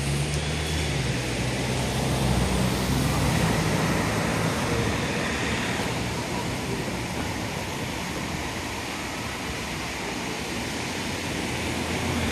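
City traffic noise: a steady wash of road noise, with a vehicle engine's low hum in the first few seconds.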